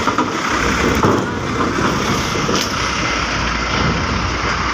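Heavy trucks running at low speed as they drive over a ferry's ridged steel ramp and vehicle deck: a steady, loud mix of engine and rolling noise.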